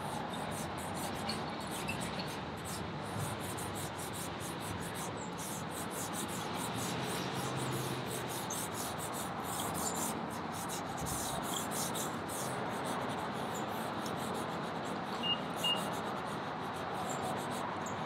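Vine charcoal scratching and rubbing across sketch paper in a run of quick, light strokes, as a gesture sketch is laid in. Two short high chirps sound about fifteen seconds in.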